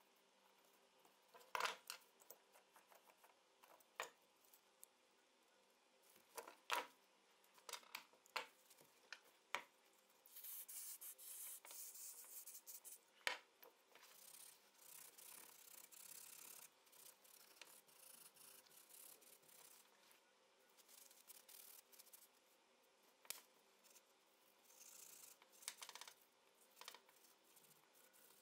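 Small steel lock parts of an old shotgun being handled: scattered light clicks and knocks of metal pieces set down and fitted together, with a few stretches of rubbing and scrubbing as the parts are wiped clean.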